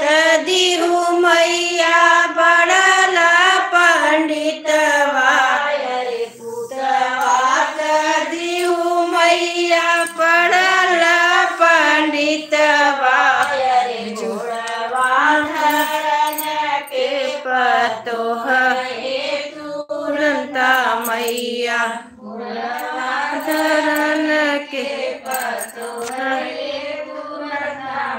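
A group of women singing a Hindi devotional bhajan together, with long, wavering held notes and brief pauses between lines.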